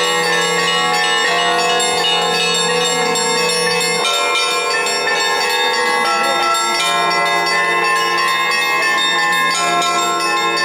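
Russian Orthodox festive bell ringing: several church bells of different pitches struck in a continuous, overlapping peal. The lowest hum drops out about four seconds in and comes back a few seconds later.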